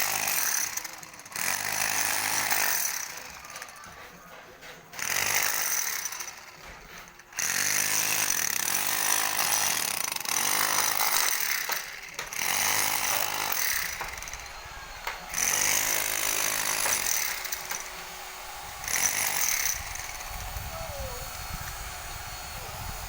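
A power tool at work on a construction site, running in repeated bursts of a few seconds that stop and start. A low rumble comes in near the end.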